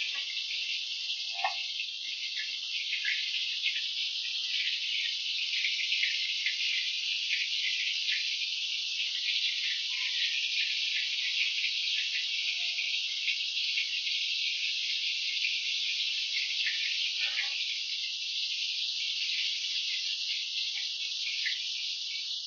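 Bombil (Bombay duck) fish coated in rice flour and semolina shallow-frying in hot oil in a pan: a steady, high sizzle with scattered small crackles and pops.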